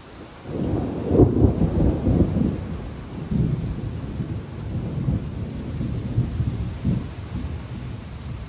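Thunder rumbling in, building suddenly about half a second in to its loudest peak just after, then rolling on in uneven waves as it slowly fades. Steady rain hisses underneath.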